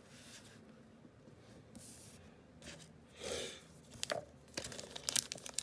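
Trading cards being handled quietly on a table, then the plastic wrapper of a sealed Topps baseball card pack crinkling as it is picked up. The sharp crinkles grow busier toward the end.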